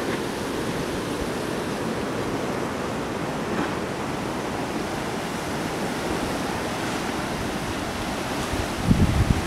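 Surf breaking on a rocky shore below, a steady even rushing, with wind buffeting the microphone briefly near the end.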